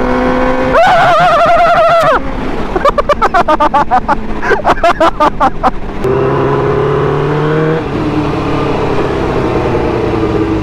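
A sport bike's engine running on the road with wind noise. Its pitch rises gently from about six seconds in and drops back near eight seconds. Between about one and six seconds in it is covered first by a wavering pitched sound, then by a rapid pulsing one.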